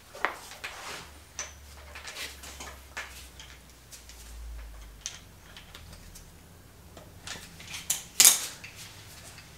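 Scattered small metallic clicks and knocks of a Keysert installation tool being turned by hand in an aluminium cylinder head's exhaust stud hole and then lifted off the seated insert, with one louder clunk near the end.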